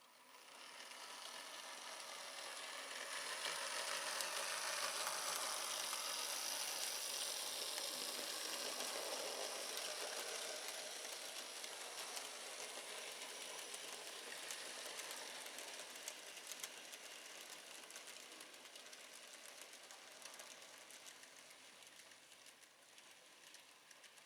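Z-gauge model train running along the track: a small electric motor whirring and wheels rattling on the rails with faint clicks. It grows louder over the first few seconds and then slowly fades as the train passes and moves away.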